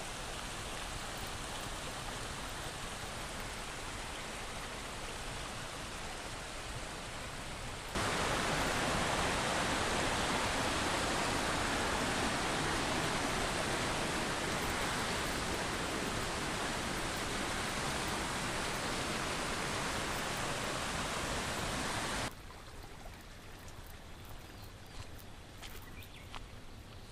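Steady rush of a mountain stream's flowing water. It jumps louder about eight seconds in and drops to a fainter hush about five seconds before the end, with a few faint clicks.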